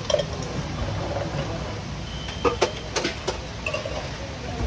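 Metal tins clinking and knocking against a steel worktop: a handful of sharp clinks, bunched around the middle, with a brief high-pitched tone just before them, over a steady low machine hum.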